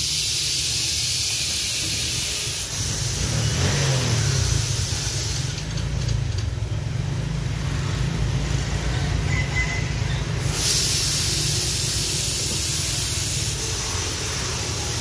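Compressed air hissing from a shop air hose as a tubeless scooter tyre is inflated on its wheel, in two long loud bursts, one at the start and one about ten seconds in, with fainter hiss between. A steady low rumble runs underneath.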